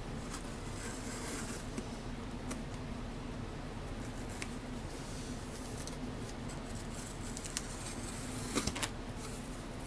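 A shipping box and its packing being handled and opened by hand: a few scattered clicks and rustles, over a steady low hum.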